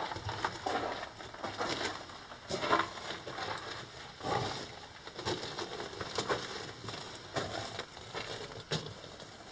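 Footsteps crunching on the loose rock and gravel floor of a mine tunnel, irregular steps with the odd scuff.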